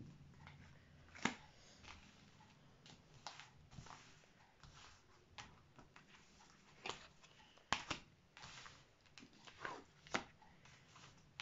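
Cards being slid and tapped on a cloth-covered table as hands move through a spread of face-down cards: quiet, scattered clicks and short brushing sounds, the sharpest about a second in and again near eight seconds.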